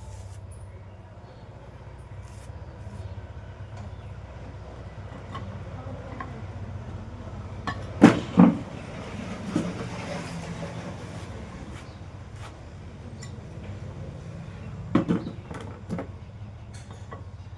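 A few sharp metal knocks as a ring is tapped into place in a ceiling fan's bearing housing: two close together about halfway through, one more soon after, and a short group near the end, over a steady low hum.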